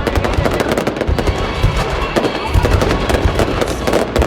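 Fireworks display going off in rapid succession: a dense, continuous crackle of sharp pops and bangs, many per second.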